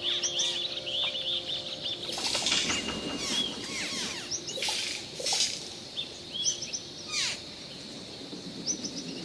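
Many birds chirping and calling at once, short chirps and quick falling whistles overlapping, thinning out over the last few seconds.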